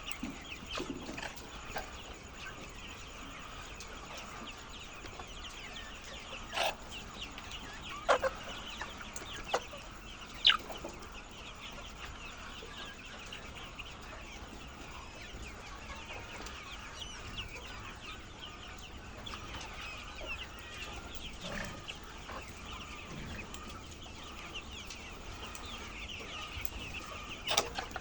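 A large flock of laying hens clucking in a continuous chatter of many overlapping calls, with a few louder, sharper calls standing out now and then.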